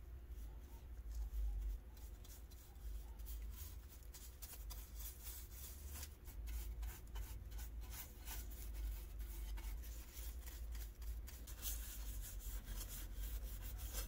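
Bristle paint brush scrubbing and dabbing paint-stripper gel onto the painted sheet-metal parts of an antique coffee grinder: a steady run of quick, scratchy brush strokes.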